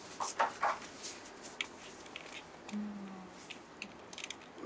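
Faint handling of a padded certificate folder and the paper inside it: a few short rustles in the first second, then scattered small clicks and taps as it is opened and held out.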